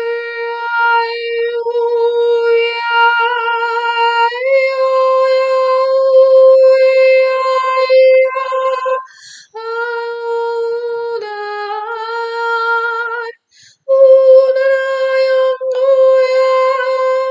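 A woman's voice toning long, wordless held notes in light-language style, on much the same pitch, stepping up slightly about four seconds in and dipping briefly past the middle, with two short breaks for breath.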